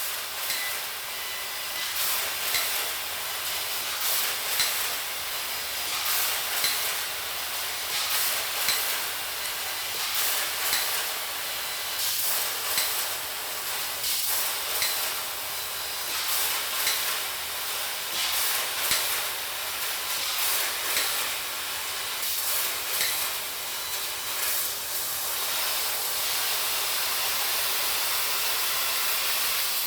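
Angle grinder with a coarse fiber disc grinding steel welds: a steady, hissy grind that surges about once a second with each pass.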